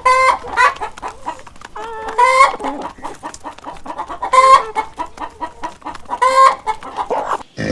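Chickens clucking, with four louder, drawn-out calls about two seconds apart over a run of short clucks.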